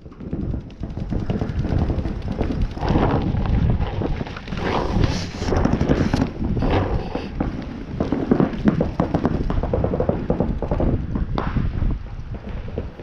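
Wind rumble and scuffing handling noise on a paintball marker-mounted camera's microphone, with scattered irregular knocks as the player shifts behind an inflatable bunker.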